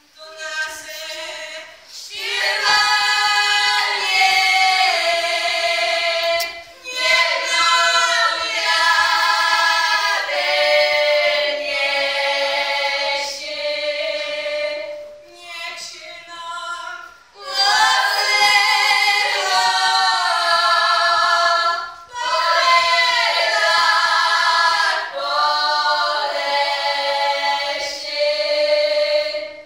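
A small group of young women singing a Polish highland (góralski) folk song a cappella, in unison, in long phrases with short breaks between them.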